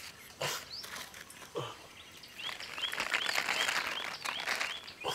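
Water poured from a steel pot splashing over a hand onto leaf plates, starting about halfway in, while a bird chirps over and over. A couple of sharp clicks come before the pouring.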